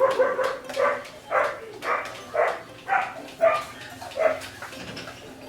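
A dog barking repeatedly, about two barks a second, stopping a little after four seconds in.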